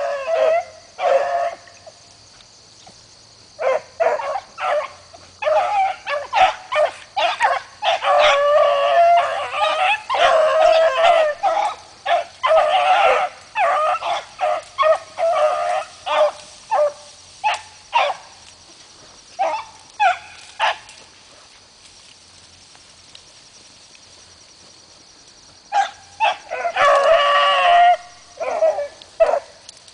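Beagles baying while running a trail through the brush: repeated drawn-out cries in bursts, several voices overlapping at times, with a lull of a few seconds past the middle.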